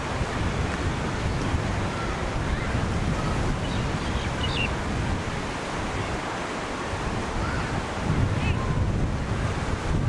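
Mediterranean surf breaking and washing up a sandy beach in a steady roar of waves, with wind buffeting the microphone, the low rumble growing stronger near the end. A couple of faint, short high chirps come through the surf.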